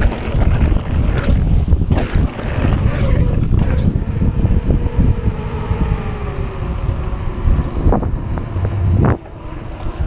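Wind buffeting the action-camera microphone while riding a mountain bike, with tyre noise as the bike rolls off a gravel trail onto pavement. The rush drops off sharply about nine seconds in as the bike slows.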